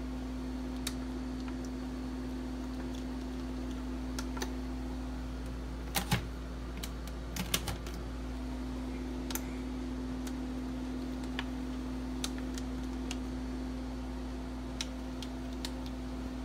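Irregular plastic clicks of fingers pressing the push buttons on a Cuisinart SmartPower Duet blender/food processor's control panel, a few close together near the middle, over a steady low hum.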